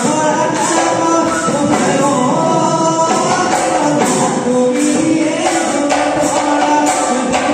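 Live Bihu music: a dhol drum and jingling metal percussion keeping a steady beat, about two strikes a second, under a sung melody.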